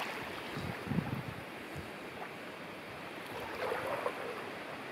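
Steady rush of wind over the microphone with small waves lapping at the water's edge.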